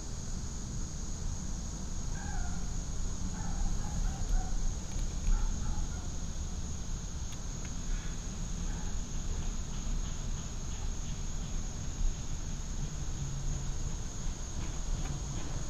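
Outdoor background: a string of short pitched calls, like a bird's or a hen's clucking, a couple of seconds in, over a steady high-pitched whine and a constant low rumble.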